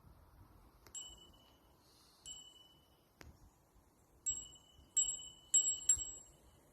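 Bicycle bell rung six times, each a short ding that rings briefly: two spaced single dings, then a quicker run of four near the end.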